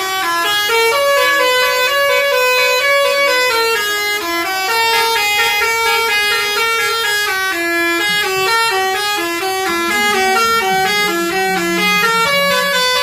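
A bus's 'basuri' telolet melody horn playing a continuous tune: loud horn notes stepping up and down several times a second. A lower steady tone joins about eight seconds in.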